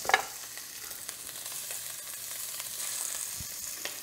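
Raw shrimp sizzling as they sear in hot olive oil in a stainless steel pan. A sharp spit of oil comes just after the start, the loudest moment, and a small tick near the end.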